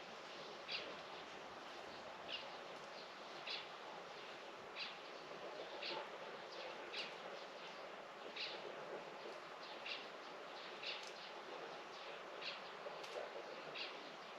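A small bird calling in short, high chirps, repeated roughly once a second, over a steady outdoor hiss of background noise.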